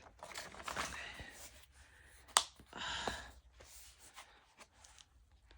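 Quiet handling sounds of an unboxed item being turned over: soft rustling, with one sharp click about two and a half seconds in followed by a brief rustle.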